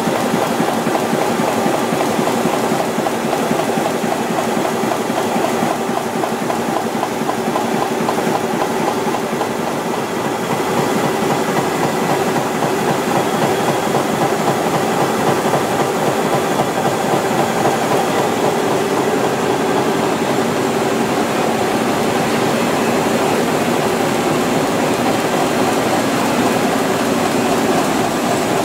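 Web printing press running, printing a continuous sheet of paper: a steady, rapid mechanical clatter with a few constant tones over it, unchanging in level.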